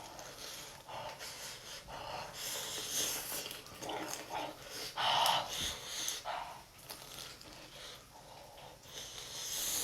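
A person eating hot food: irregular short bites and chewing noises mixed with huffing breaths. The huffing is taken in to cool a scalding mouthful.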